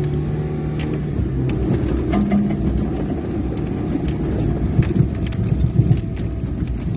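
Off-road vehicle's engine running, with scattered knocks and rattles throughout.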